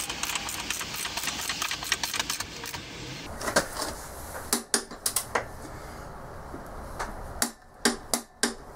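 Ratchet of a socket wrench clicking rapidly as the motorcycle's rear axle nut is run down toward its 47 foot-pound setting, then a few separate sharp clicks in small groups later on as the wrench is swung in shorter strokes.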